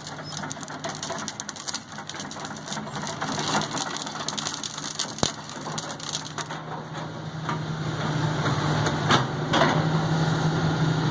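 Backhoe engine running at a steady pitch under dense crackling and snapping, as of wood or brush being crushed; the engine grows louder over the last few seconds.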